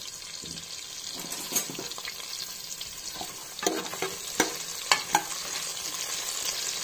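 Carrot, green chillies and mint sizzling in hot oil and butter in a pressure cooker, stirred with a ladle. The ladle scrapes and knocks against the pot several times, the knocks loudest around the middle.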